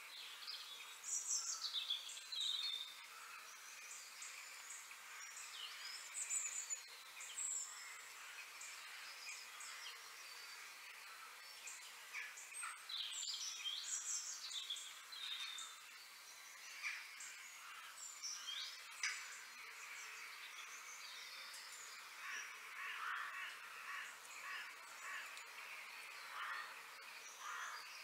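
Outdoor ambience of birds calling and chirping, several short calls with quick falling sweeps scattered through it, over a steady background hiss.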